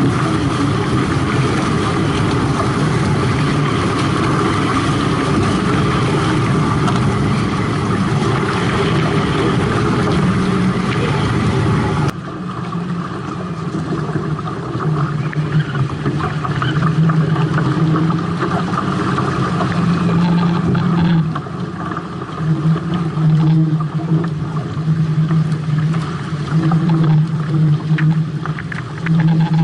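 Wind buffeting the action camera's microphone over water rushing and splashing along the hulls of a Hobie 18 catamaran under sail. About twelve seconds in the sound changes abruptly to a gustier, uneven rush with a pulsing low hum, the boat now sailing slower.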